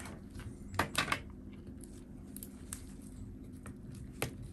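A few light clicks and taps as gloved fingers press the battery cable's connector onto a MacBook Air's logic board, the loudest about a second in, over a steady low hum.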